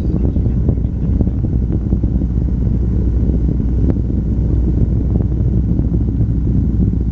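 Delta IV Heavy rocket's three RS-68A engines heard from the ground as a steady deep rumble with scattered crackles.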